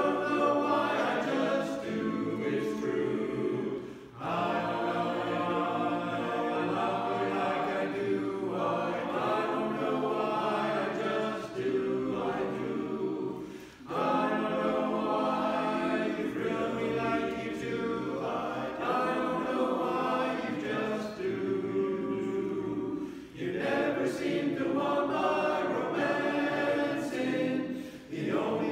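Barbershop chorus singing a cappella in close four-part harmony, in sustained phrases broken by short pauses for breath.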